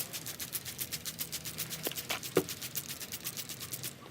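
Quick back-and-forth rubbing on a plastic headlight lens, about eight strokes a second, wiping off toothpaste, stopping just before the end.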